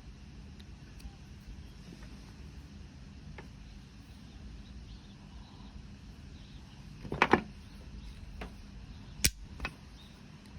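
A handheld multitool and its bits being handled: a short rattle of clicks about seven seconds in, then two sharp single clicks a little later, over a low steady background hum.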